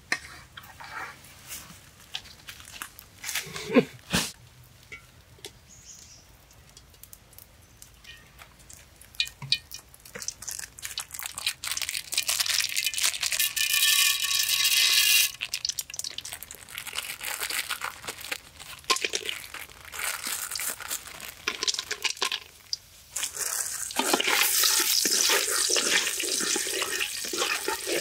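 A few sharp knocks in the first seconds, then hot oil in a pan sizzling and crackling from about twelve seconds in as whole spices are fried in it. The sizzle thins out for a while, then comes back dense and steady for the last few seconds.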